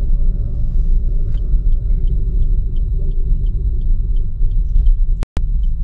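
Steady low road and engine rumble inside a moving Suzuki Ertiga's cabin, with a faint, regular ticking of the turn-signal indicator, about three ticks a second, starting about a second and a half in as the car nears a left turn. The sound cuts out for an instant near the end.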